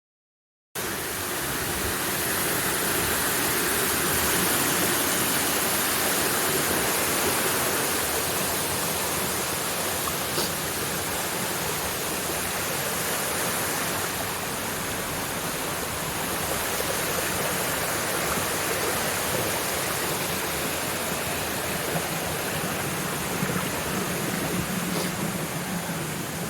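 Steady rush of flowing water, cutting in abruptly about a second in.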